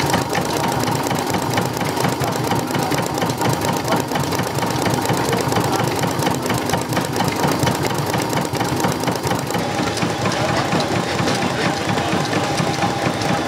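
Old stationary engine running with a fast, even beat. About ten seconds in, the sound turns duller.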